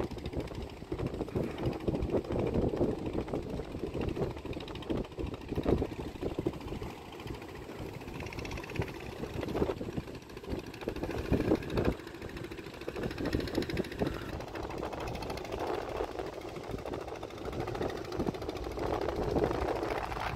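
Wind buffeting the microphone on a ship's deck at sea: an uneven rumble with gusts coming and going.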